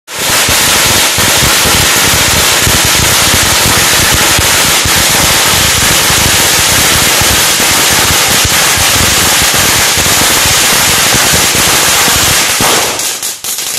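A long string of firecrackers going off in a loud, rapid, unbroken run of bangs, thinning to a few scattered pops near the end.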